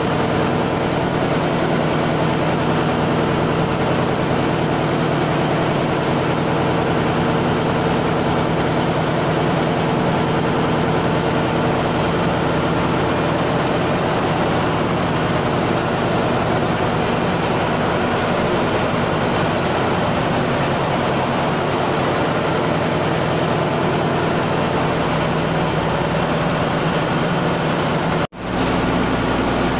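Steady drone of running machinery in a ship's engine room, a constant hum with several held tones, breaking off for an instant near the end.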